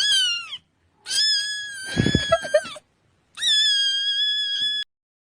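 A cat's high-pitched cries, three in a row: a short one falling in pitch, then two long, level ones, with a brief jumble of lower sounds partway through the second.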